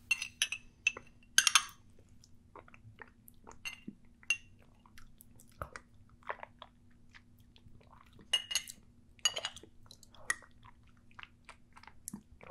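A metal spoon scraping and clinking against a small glass baby-food jar, and wet mouth sounds of eating pear and blueberry purée off the spoon, heard as scattered short clicks and smacks.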